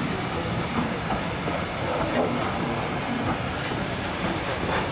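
Heritage passenger coaches rolling past on the track, with a steady rumble and wheels clicking over the rail joints. A brief hiss comes about four seconds in.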